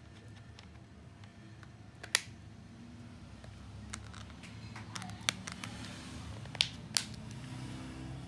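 Sharp plastic clicks and taps as the back cover of a Tecno Spark 2 phone is pressed back onto the handset. There is a loud click about two seconds in, three more in the second half, and small ticks in between, over a low steady hum.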